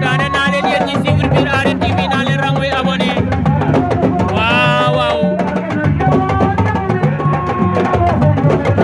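Music with a steady, repeating drum pattern under voices or singing.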